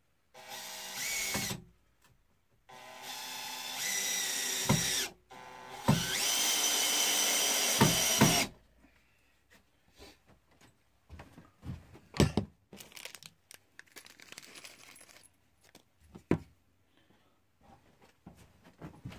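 Cordless drill driving screws through metal brackets into a wooden bunk: three runs, each a second or two long, in the first eight seconds or so. Scattered clicks and knocks of handling follow.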